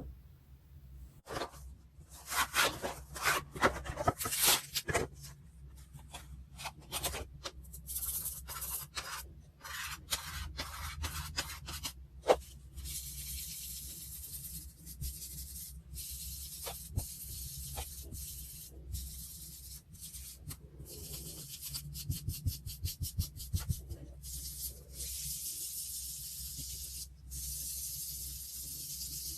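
Hands working on a paper diary page: a run of short scratching and rubbing strokes on paper, a sharp click about twelve seconds in, then longer spells of steady rubbing.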